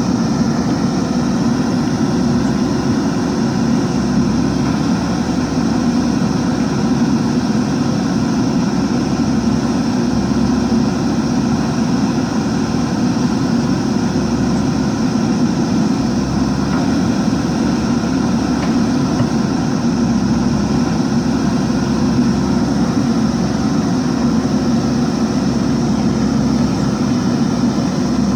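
JCB 3DX backhoe loader's diesel engine running steadily, a constant low drone with no breaks.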